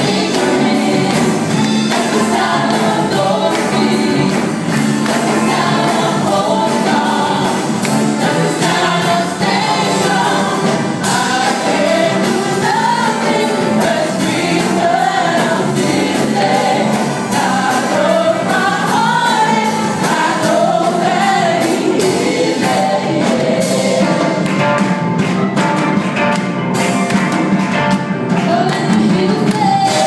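Live gospel worship music: several women singing together into microphones over an amplified live band.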